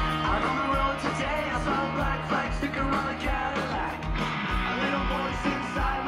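Rock music with singing, guitar and a steady drum beat.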